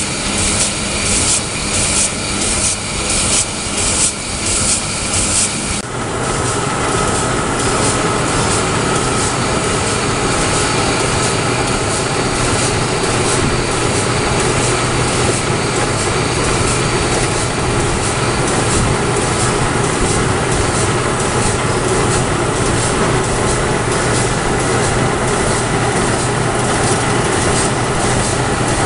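Simon 350 corrugated-box casemaker running in production. For about the first six seconds there is an even rhythmic clatter at about two beats a second. After an abrupt change it becomes a steady, dense mechanical noise with a low hum.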